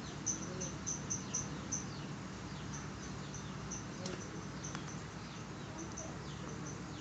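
Faint high chirps from a small animal, several a second at first and sparser later, over a low steady hum.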